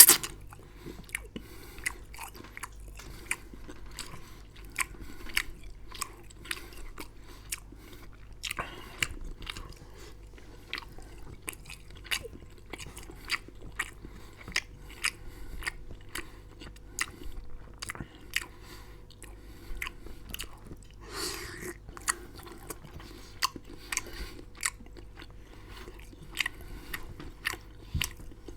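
A person chewing and biting food close to the microphone, with many sharp, irregular crunchy and wet mouth clicks, a few each second.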